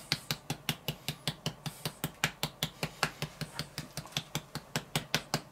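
Spice shaker of curry powder clicking in a quick, even rhythm, about six clicks a second, as it is shaken out over a mixing bowl.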